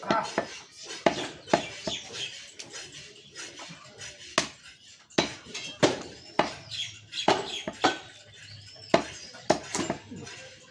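A butcher's cleaver chopping through beef into a wooden log chopping block: a run of sharp knocks at an uneven pace, about one to three a second.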